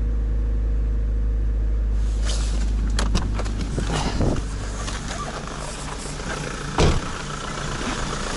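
Toyota Rush's 3SZ-VE four-cylinder petrol engine idling just after a cold start in deep frost, running quietly with no knock after its rebuild, with a diesel engine also running nearby. From about two seconds in there are several sharp knocks and rustles on top.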